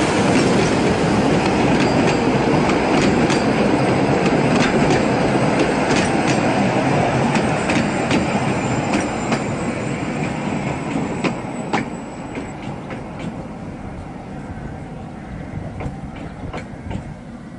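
Severn Lamb custom tourist tram's carriages rolling past on narrow-gauge rail track, with a steady rumble from the wheels and a scatter of sharp clicks. The sound fades from about ten seconds in as the tram draws away.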